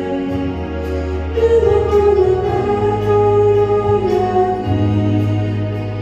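Slow church hymn music: long, sustained melody notes over steady held bass notes, changing every second or two.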